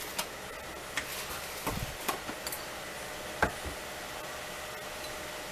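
A few scattered light clicks and knocks of kitchen items being handled and set down, over a faint steady room hum.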